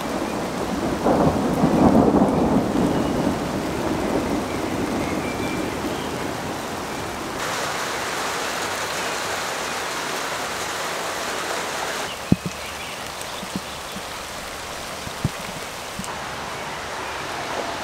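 Heavy rain pouring steadily, with a long rumble of thunder swelling about a second in. In the second half the rain is softer, with a few sharp taps.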